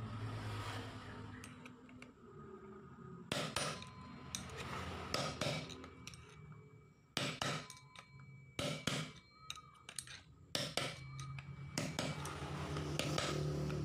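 Hammer striking a metal drift to drive a new ball bearing into a Yamaha Mio Sporty's CVT pulley: about a dozen sharp metallic taps in small, irregular groups, starting about three seconds in, as the bearing is pressed home until it bottoms out.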